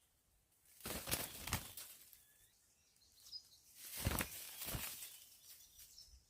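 Two bursts of rustling noise, each about a second long, about a second in and about four seconds in, with a few faint bird chirps between them.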